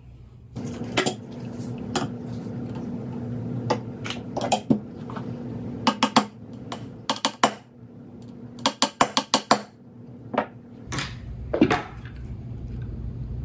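Metal parts of a VZ 58 rifle clicking and clinking as it is reassembled. Two quick runs of sharp taps, five to seven strikes each, come from a roll pin being hammered in.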